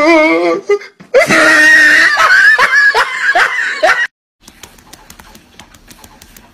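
Loud, shrill, wavering vocal cries and laughter-like squeals, broken into short pulses, stopping abruptly about four seconds in.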